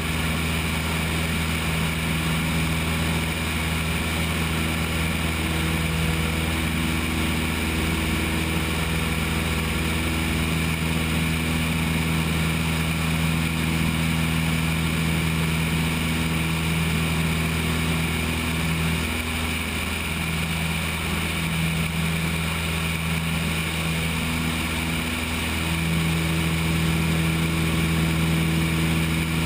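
Cessna 172's piston engine and propeller droning steadily in flight, with wind rushing over the wing-mounted camera. The drone's pitch wavers briefly about two-thirds of the way through.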